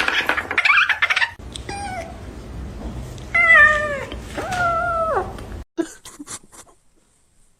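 Domestic cat meowing three times, a short call and then two longer ones that fall in pitch. The sound then cuts off to near quiet, with a few soft clicks.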